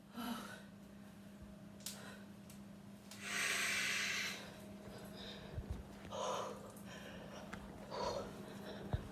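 A frightened person breathing, with one long loud exhale about three seconds in and quieter breaths later, over a faint steady electrical hum and a few small clicks.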